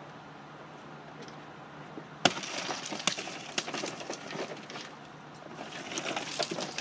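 A minivan's tempered side window smashed with one sharp blow about two seconds in, followed by crunching and tinkling of glass fragments. Near the end more loose glass crackles and falls as a bag is dragged out through the broken window.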